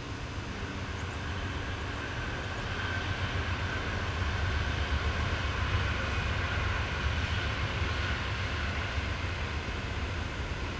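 Low rumble of a passing vehicle that swells over several seconds and eases off slightly near the end.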